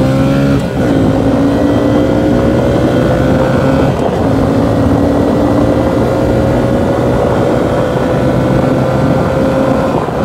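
Small 110 cc engine run through the gears while riding: a shift about half a second in, then the engine note climbs slowly and steadily as it pulls through the next gear, dropping again at the very end.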